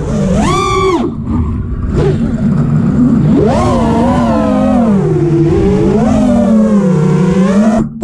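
Brotherhobby T1 2205 motors and Ethix P3 props of an FPV freestyle quadcopter whining, the pitch rising and falling with each throttle change. The whine cuts off just before the end as the quad lands and the motors stop.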